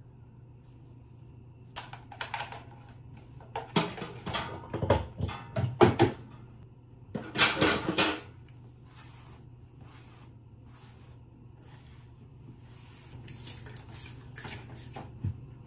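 A hand-held trigger spray bottle misting hair, in a run of short squirts about two a second through the second half. Before that, louder irregular rustling and handling noise as the hair is swept and tossed.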